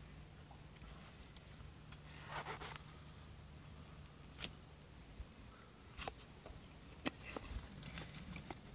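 Half Face Blades chef's knife slicing through watermelon, with scattered sharp taps and clicks of the blade against a wooden cutting board. A faint high-pitched pulsing drone carries on in the background.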